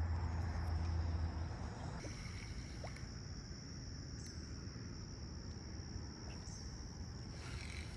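Outdoor ambience: a steady high-pitched insect buzz over a haze of low background noise, with a low rumble that is loudest in the first second and a half.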